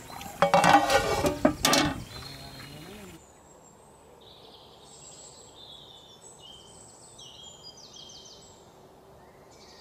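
Birds chirping and calling now and then over a quiet outdoor background. A louder, unclear sound fills the first two seconds.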